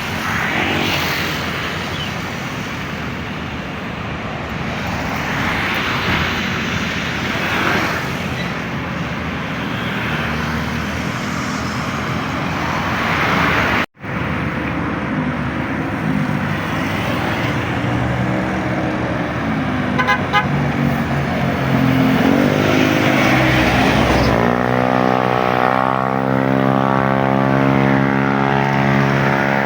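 Diesel buses running and moving through a bus terminal. Near the end a low pitched sound rises and then holds steady for several seconds.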